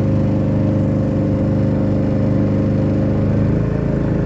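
An engine running steadily at an even speed, loud and close, with a constant low hum.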